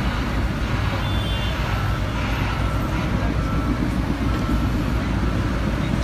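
Diesel engine of a John Deere compact excavator running steadily, a continuous low rumble.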